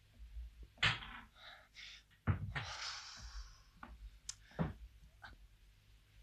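A man moving about a quiet room: a few separate knocks and thuds, and a longer breathy sound like a sigh or a rustle of clothing.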